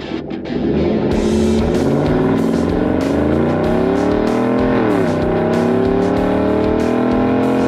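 Chevrolet Silverado's V8 accelerating through an AWE 0FG catback exhaust, a deep exhaust note rising in pitch, dropping sharply at an upshift about five seconds in, then climbing again.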